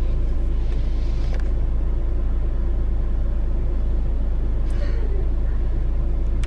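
Car engine idling, heard as a steady low rumble inside the cabin.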